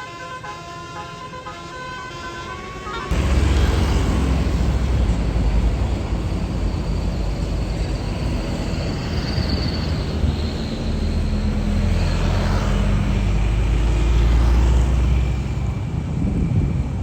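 Basuri multi-tone musical bus horn playing a short stepped tune. About three seconds in, a loud low rumble cuts in and runs on: a bus engine passing close, with wind buffeting the microphone.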